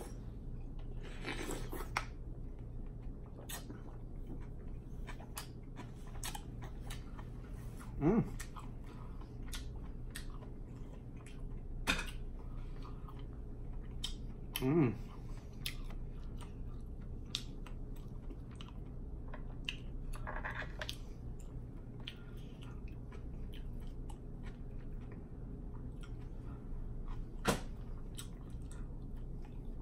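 Close-miked chewing of seafood-boil seafood dipped in sauce, with wet mouth clicks and smacks scattered throughout. Twice, about eight and fifteen seconds in, a short rising hum from the eater.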